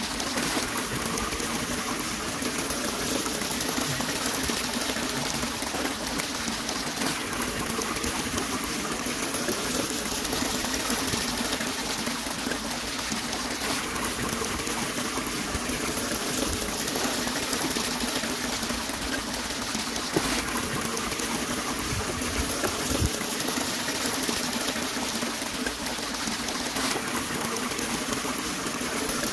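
Steady rush of shallow running water, unbroken throughout, with a few faint knocks in the second half.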